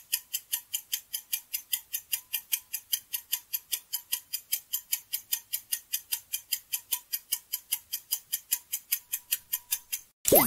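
Quiz countdown-timer ticking effect: rapid, even clock ticks, about five a second, that stop near the end, followed by a short swooping tone as the answer comes up.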